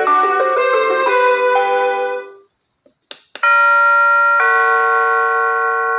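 Hampton Bay wireless doorbell's chime unit playing its preset tones: a multi-note melody ends about two seconds in, a click follows about a second later, then a two-note ding-dong, the second note lower, rings out and fades slowly.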